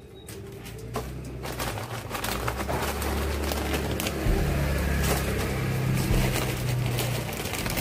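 A low engine hum that swells over several seconds and holds at its loudest through the second half, like a motor vehicle going by. A few light, crisp clicks sound over it.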